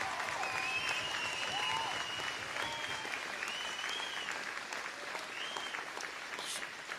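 A large crowd applauding steadily, with whistles and cheers rising above the clapping.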